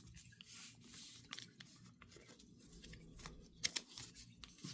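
Faint rustling and scattered light clicks of oversized trading cards being handled and shuffled, with a couple of sharper clicks near the end.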